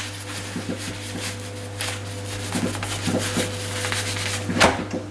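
A few light clicks and knocks from a cupboard door's handle and tubular latch being worked and wiped after a spray of WD-40, over a steady low hum.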